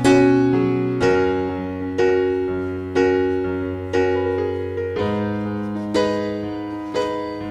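Background piano music: gentle chords struck about once a second, each ringing and fading before the next.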